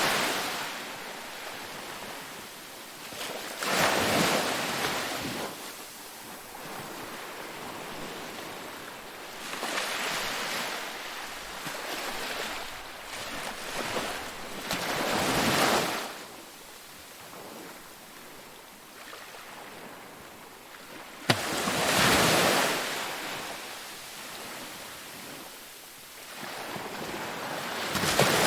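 Sea waves breaking and washing in, a loud surge about every five to six seconds with a steady hiss of surf between them. A single sharp click comes just before one of the breakers.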